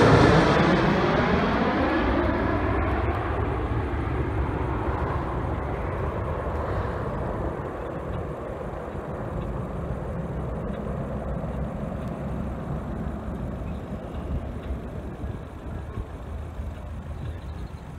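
Twin-engine jet airliner on landing approach passing low overhead, its engine noise falling in pitch and fading away over several seconds into a low, distant rumble.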